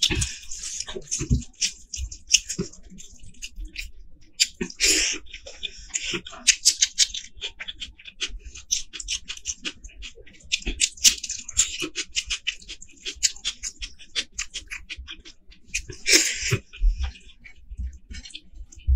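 Close-up eating sounds: wet chewing and lip smacks, with fingers squishing rice and curry together on a plate. Many quick small clicks and crackles, with two louder noisy bursts, about five seconds in and near the end.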